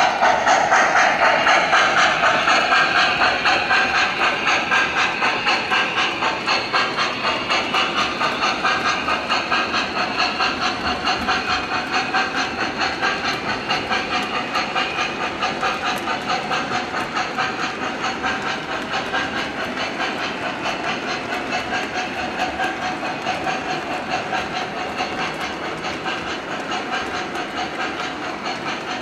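O-gauge model steam locomotive running past, its sound system giving a regular chuff with steam hiss over the clatter of the train's wheels on the track. Loudest as the engine passes at the start, then slowly fading as the flatcars roll by.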